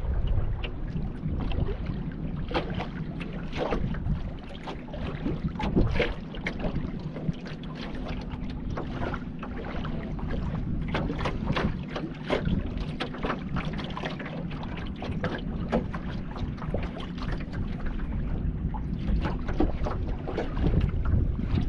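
Water splashing and lapping against a kayak as it is paddled, many short irregular splashes, with wind rumbling on the microphone.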